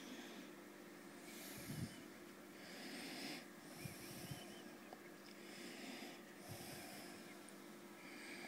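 Soft breathing close to the microphone, hissy breaths coming and going every second or so, over a steady low hum. A few faint low knocks sound near the second and fourth seconds.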